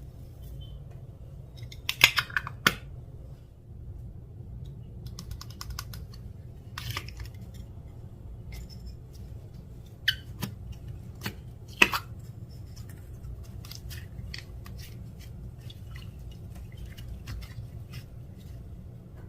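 Clear slime being worked by hand with things mixed in, giving scattered sharp clicks and small crackling ticks. The loudest clicks come about two seconds in and again twice near the middle, over a steady low hum.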